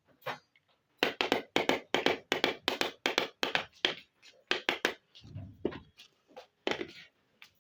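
Small plastic miniature toy pieces tapping and clicking as they are handled: a quick run of sharp taps, about five a second, for some three seconds, then scattered taps and a soft low thump.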